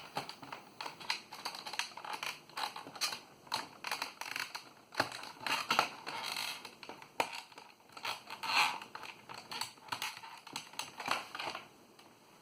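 Plastic case of a 1994 Compaq Enhanced Keyboard creaking as its cable is pressed into the cable channel, a terrible creaking made of irregular crackles and clicks that stops shortly before the end.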